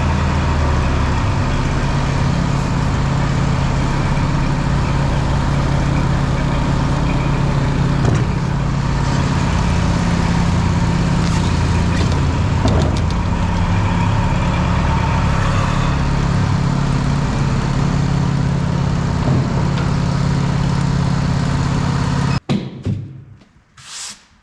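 Portable bandsaw sawmill running steadily under load as its blade cuts through a maple log. The sound cuts off abruptly near the end.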